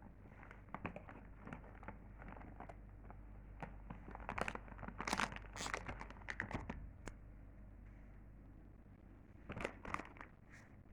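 A bag of chips crinkling and crunching in short crackly bursts, loudest from about four to seven seconds in and again near the end.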